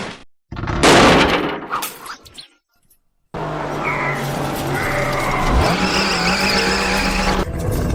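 Cartoon car sound effects: a loud burst of noise about a second in that fades to a brief silence, then a car engine running steadily with tyres skidding, its pitch stepping up partway through.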